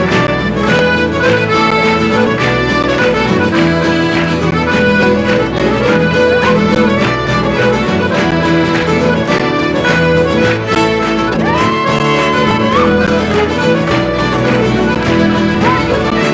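Instrumental traditional Scottish tune led by accordion with a band, played at a lively, steady beat.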